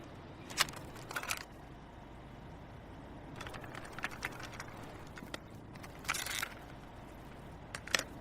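A quiet gap with a low steady background hiss and hum, broken by a few faint, short clicks scattered through it.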